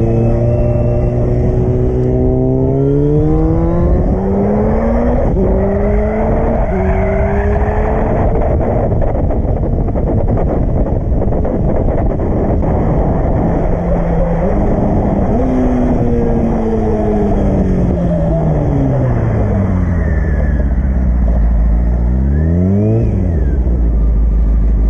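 Honda CBR600 F4i sport bike's inline-four engine pulling up through the gears, its pitch rising and dropping at each shift, then cruising under heavy wind noise. It slows with the pitch falling, gives one quick rev near the end, and settles to idle.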